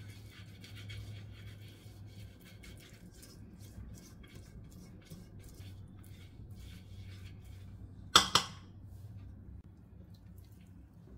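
Basting brush scraping quickly back and forth over the nonstick inside of a metal pot, spreading ghee in many short strokes. About eight seconds in, one loud sharp knock, doubled.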